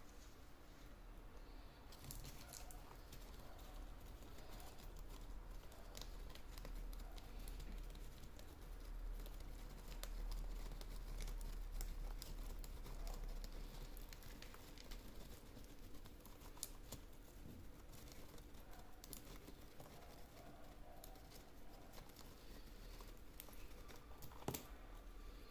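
Faint rustling and crinkling with many scattered small clicks, from a pet parrot picking at material and working it into its feathers.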